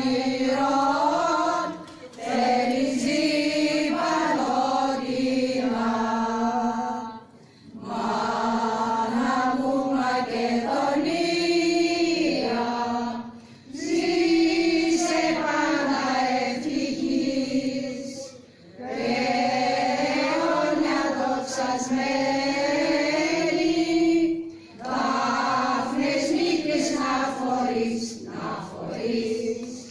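A choir singing in long, drawn-out phrases, with a short break about every five to six seconds.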